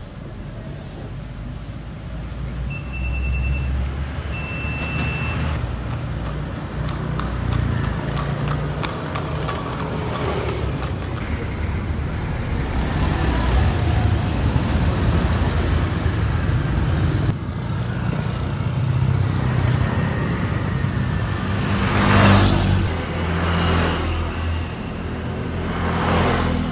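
Street traffic noise: vehicles running with a steady low rumble, and two short high tones about three seconds in. Near the end two louder vehicle passes swell up and fade.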